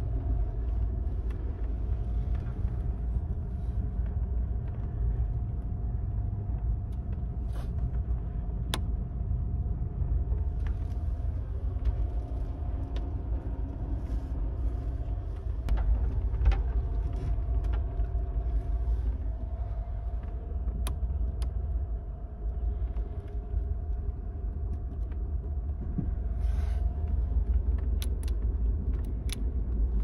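Amtrak Superliner sleeper car rolling along, heard inside the roomette: a steady low rumble with a faint steady hum over it, and scattered sharp clicks.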